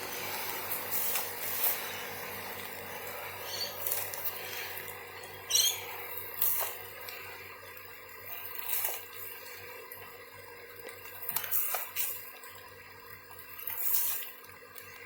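Hands digging through soil in a container and handling potatoes: scattered small rustles, knocks and clicks, with light rain dripping.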